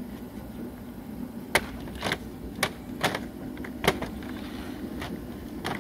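Plastic engine cover of a VW 2.0 TDI being worked free and pulled off its mounts: a series of sharp plastic clicks and knocks, about six spread over several seconds.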